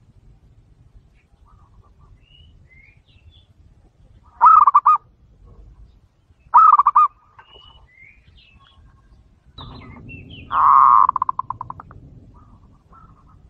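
Zebra dove (perkutut) cooing. Two short bursts of rapid coos come about four and a half and six and a half seconds in, then a longer rolling coo near the end that breaks into fading staccato notes.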